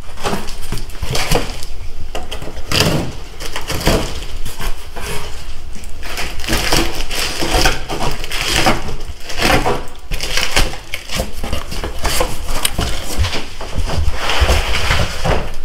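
Cardboard shipping box being slit open with a utility knife and its flaps pulled back: continuous, irregular crackling, tearing and crinkling of cardboard, paper tape and plastic stretch wrap.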